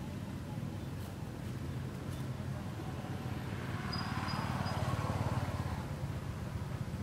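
Low, steady engine hum that grows louder for a couple of seconds around the middle, with a brief high squeak about four seconds in.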